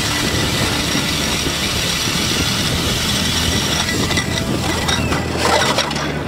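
Cordless drill driving an ice auger through lake ice: the motor whines steadily under a dense grinding of ice chips. About five seconds in, the sound changes as the auger breaks through to the water.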